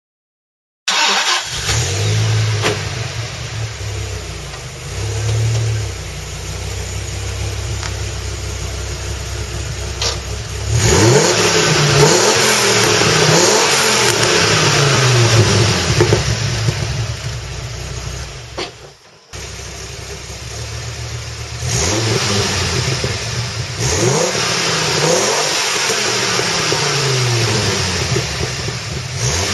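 2000 Dodge Viper's 8.0-litre V10 through its stock exhaust, idling with a few light blips, then revved over and over in rising and falling pulls. The sound breaks off briefly about two-thirds of the way through, then the revving resumes.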